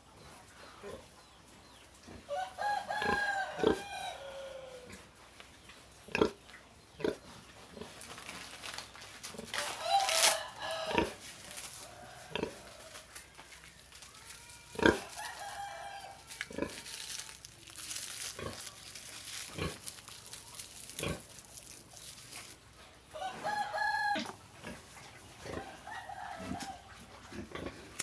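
A rooster crowing about five times, each crow a second or two long with a falling tail, amid scattered sharp knocks and clicks.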